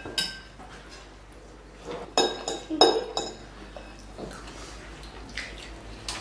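Cutlery clinking at a meal: a fork and chopsticks knocking against a bowl and plastic food trays. A few sharp, ringing clinks, most of them about two to three seconds in.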